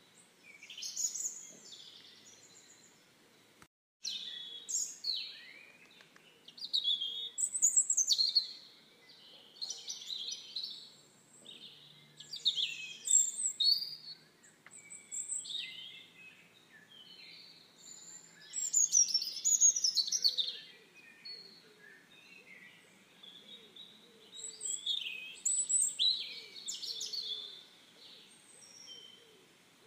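Birds chirping and singing, a busy run of short, quick calls and trills that come and go in bursts. The sound drops out for a moment about four seconds in.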